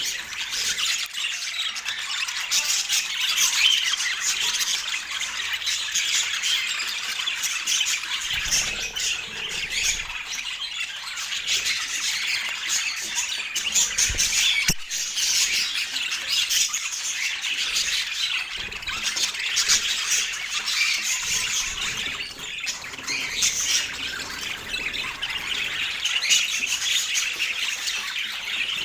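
Budgerigars chattering and squawking without a break, a dense stream of rapid high chirps and warbles. A short knock comes about halfway through.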